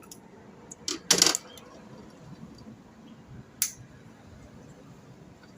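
A few sharp clicks and one short metallic rattle about a second in, with another click later, from small metal parts being handled.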